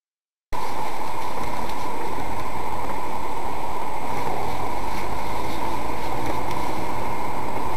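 Steady, loud driving noise from inside a moving car, picked up by a dashcam's microphone: engine and road noise that starts abruptly about half a second in.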